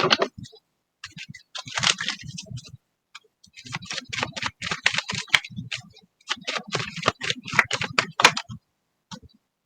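Rapid light clicks and taps, several a second, in three runs separated by short pauses.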